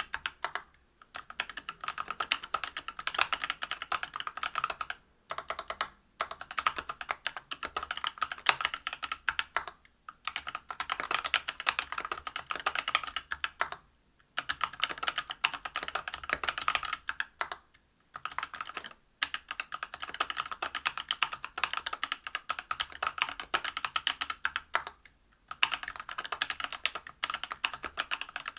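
Continuous typing on a Whale 75 mechanical keyboard with stock, unlubed Everglide BeesWax 67 g linear switches in a brass plate and PBT keycaps. Dense runs of key strikes are broken by short pauses every few seconds.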